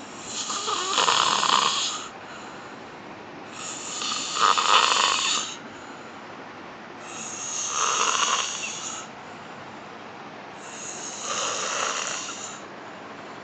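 A woman snoring in her sleep: four long snores, one about every three and a half seconds, with quiet breathing gaps between.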